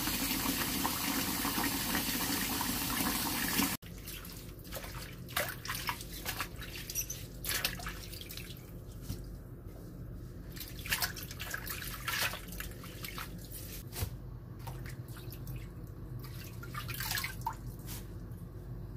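Tap water running into a plastic bowl of coriander and spring onions in a sink, cutting off suddenly about four seconds in. Then come scattered splashes and swishes as a hand rinses the herbs in the water and lifts them out into a plastic colander.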